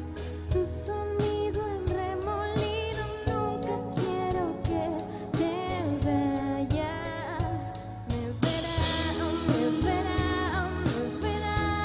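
Live rock band playing: a woman sings the melody while the drummer plays the drum kit, over electric guitar.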